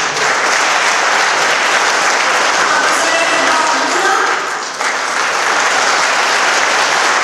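Audience applauding steadily, with a few voices heard over the clapping.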